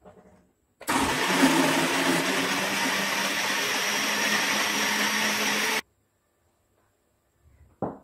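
Countertop jug blender motor running steadily, puréeing chopped kiwi and other fruit into a smoothie. It starts abruptly about a second in and cuts off about five seconds later, and a brief knock follows at the very end.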